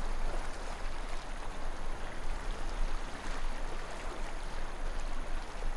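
Shallow water flowing and rippling over stones, a steady rushing.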